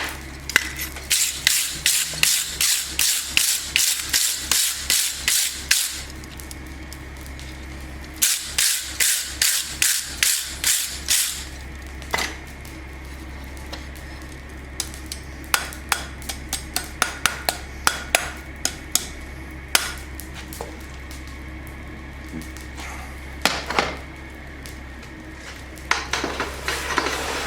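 Hand hammer striking hot steel on an anvil, forging a knife: two fast runs of ringing blows, about two and a half a second, then lighter, scattered taps. A steady low hum runs underneath.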